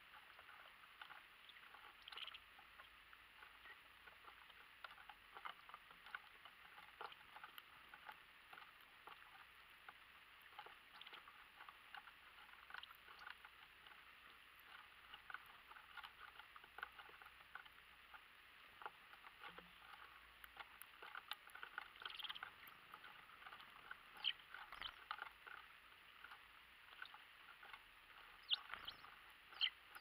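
Small bird pecking and cracking seeds on a wooden feeder tray: faint, irregular little clicks and taps, a few sharper ones near the end.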